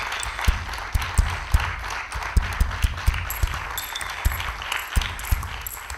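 Audience applauding: a dense patter of many hands clapping, with scattered low thumps under it.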